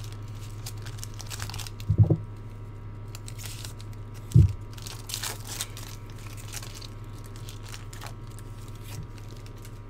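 Foil trading-card pack wrapper being torn open and crinkled by hand, with two dull knocks about two and four and a half seconds in.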